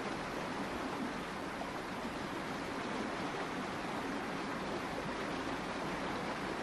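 Steady rushing of white water pouring over a river weir, an even noise with no breaks.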